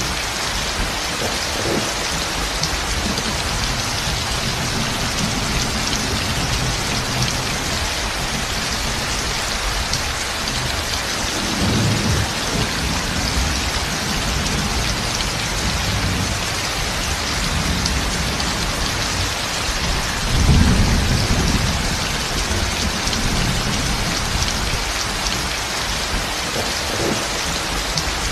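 Heavy rain pouring steadily onto tin roofs, with low thunder rumbling twice, once near the middle and more loudly about three-quarters of the way through.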